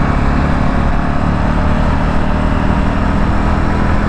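Motorcycle engine running steadily at road speed, with wind noise on the rider's lapel microphone and road noise.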